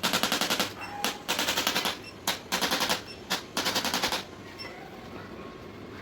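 A fast, even rattle of rapid clicks, coming in bursts of about half a second several times over, stopping about four seconds in.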